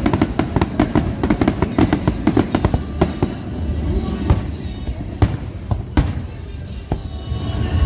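Display fireworks going off: a rapid, dense run of crackling bangs for the first few seconds, thinning to a handful of single loud cracks over a steady rumble.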